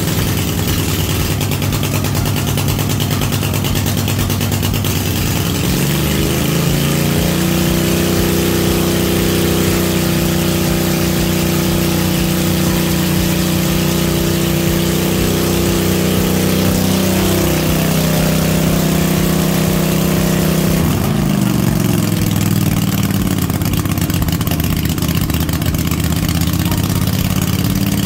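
Cub Cadet RZT-50 zero-turn mower engine running. About six seconds in it speeds up to a higher steady speed, then about twenty seconds in it drops back down to idle.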